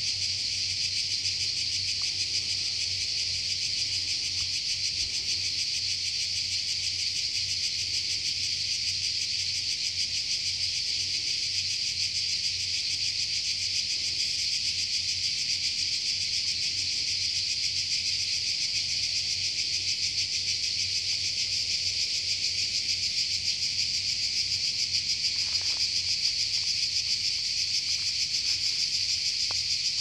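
Chorus of cicadas singing continuously in pine woodland: a dense, steady, high-pitched buzzing drone that never pauses or changes.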